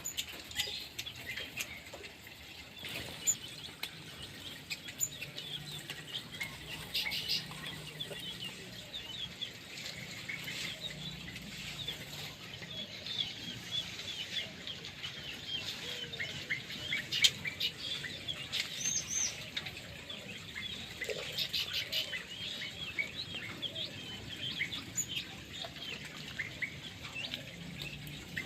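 Many small aviary birds chirping continuously in short, overlapping calls, with a few sharp clicks or flutters among them.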